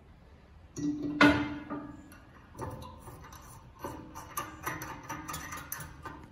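A metal clank with a brief ringing tone about a second in, then a run of small metallic clicks and rattles as bolts and nuts are fitted under an enamelled cast-iron stove base.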